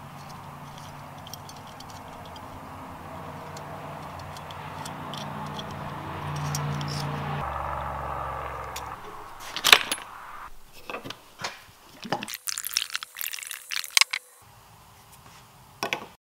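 A steady low hum grows louder and stops abruptly about seven seconds in. Then small aluminium cable clamp parts clink and rattle in a run of sharp metallic clicks as they are handled and fitted together.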